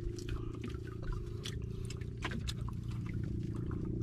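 Someone chewing soft steamed rice cakes (puto and kutsinta) close to the microphone, with small irregular wet clicks and smacks, over a steady low hum.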